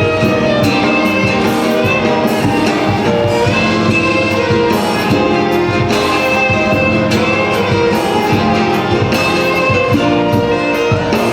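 Instrumental passage of a song: several instruments playing together at a steady level, with no clear lead voice.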